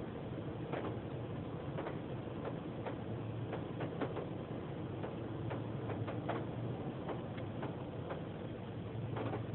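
Irregular ticks of water dripping onto the car, about two a second, over a steady low hum, heard from inside the car in an automatic car wash.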